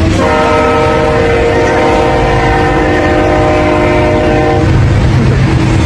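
Train horn sounding one long blast of several notes at once, lasting about four and a half seconds, over the steady low rumble of a passing freight train.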